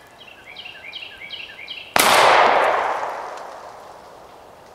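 A 20-gauge semi-automatic shotgun fires once about two seconds in, the report echoing and fading away over the next two seconds. Before the shot, a bird chirps a quick run of short rising notes.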